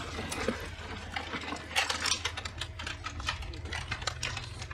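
Rapid, irregular clicking and clattering from an armed crowd's weapons and gear, over a low steady hum.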